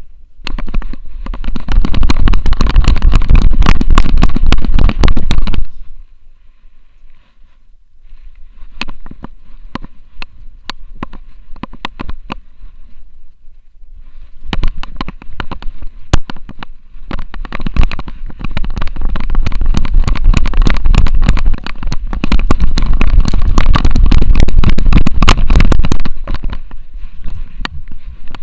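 Rumbling, rubbing and knocking from a Xiaomi Yi action camera strapped to a running French bulldog's harness: the camera and its mount jostle and buffet as the dog moves. It is loud for a few seconds near the start, drops to scattered knocks for about ten seconds, then is loud again for most of the rest.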